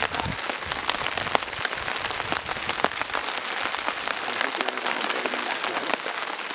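Heavy rain falling steadily, with many sharp ticks of single drops striking a nearby surface.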